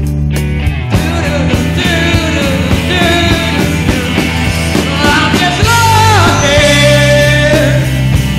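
Rock band playing live, with bass, drums and rhythm guitar. About a second in, a high lead melody comes in over them, its notes bending and sliding.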